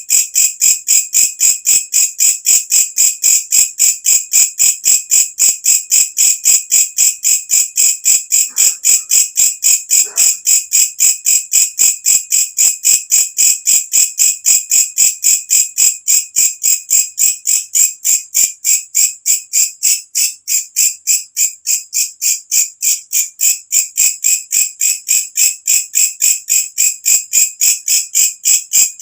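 Walang kecek (belalang kecek) katydid calling: a shrill, loud, unbroken train of evenly spaced chirping pulses, about three a second.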